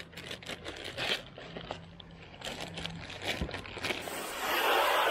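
Irregular crinkling and scraping of something being handled, many short rustles in a row; about four seconds in a steady hiss starts.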